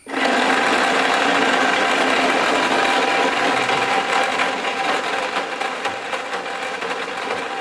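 Homemade mixer grinder's electric motor switched on and running with its vegetable-slicer attachment, slicing a vegetable; it starts abruptly and runs steadily, easing a little toward the end.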